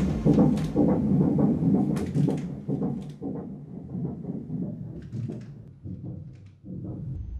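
Fetal heartbeat heard through an ultrasound machine's Doppler audio: a rhythmic pulse at about two to three beats a second, growing fainter.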